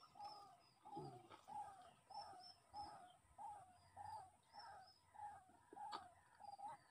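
Faint, regular animal calls from the swamp, about one and a half a second, each a short mid-pitched note with brief high chirps over them. A single faint click about six seconds in.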